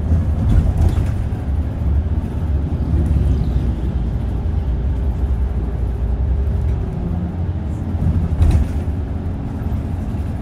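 Steady low rumble of road and engine noise inside a moving road vehicle, with a faint hum that shifts in pitch partway through. There is a louder bump about a second in and another near the end.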